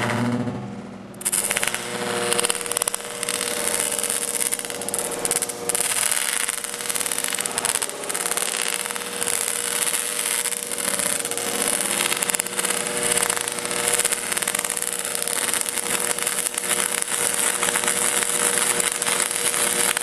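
Stick-welding arc from a 6013 electrode: a short burst as the arc strikes, a brief dip, then steady dense crackling as a short bead is run, with a steady hum underneath. The machine is set too cold for the rod, in the welder's own words.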